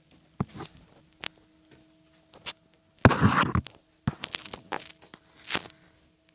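Irregular light knocks and taps, with a short louder rustling scuffle about three seconds in.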